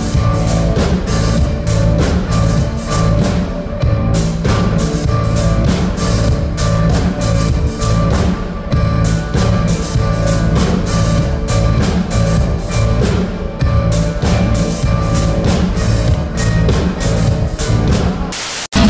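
A live band playing: a steady drum beat under electric guitar and keyboards.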